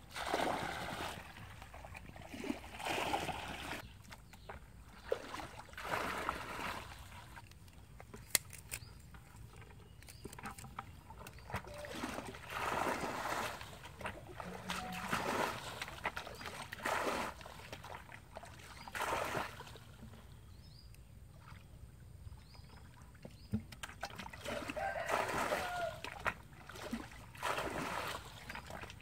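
Shallow water splashing and sloshing in short, irregular bursts every second or two.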